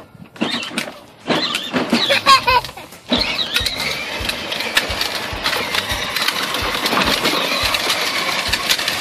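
Battery-powered Power Wheels Jeep Wrangler ride-on toy driving: its electric motors and gearboxes whir and its plastic wheels rattle over concrete, starting about three seconds in and running steadily after that.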